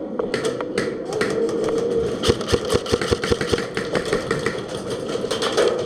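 Airsoft guns firing semi-auto shots in quick, irregular succession, densest from about two seconds in, over a steady hum.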